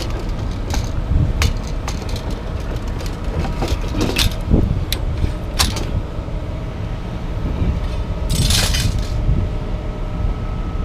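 Scrapyard magnet crane's engine running steadily, with scattered metal clinks and clanks as it works at a scrap load, and a short hiss about eight seconds in.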